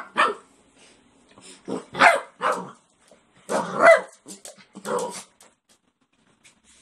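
A small white fluffy dog barking at a toy dangled above it, about eight barks in quick bunches over the first five seconds.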